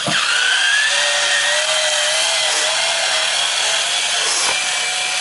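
Black & Decker lithium-ion cordless drill running steadily, its motor whine rising as it spins up at the start, while it backs screws out of a plywood shipping crate.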